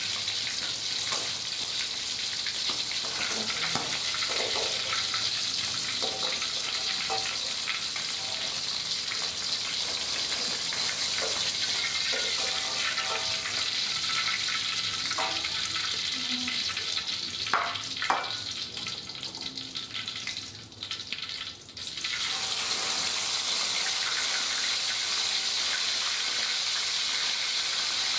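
Chicken pieces being par-fried in hot oil in a wok: a steady sizzling hiss, with a couple of clinks of a metal spatula against the wok and plate. About three-quarters through, the sizzle falls away briefly, then comes back louder as raw chicken goes into the oil.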